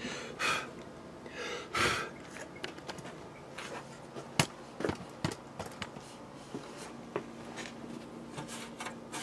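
Handling noise from an opened metal router case: a couple of brief rubbing swishes near the start, then scattered light clicks and taps. The sharpest click comes a little under halfway through.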